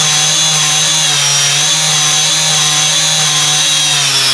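Electric motor and propeller of a Sport Cub 500 RC plane running at high throttle, held on the ground: a loud, steady whine.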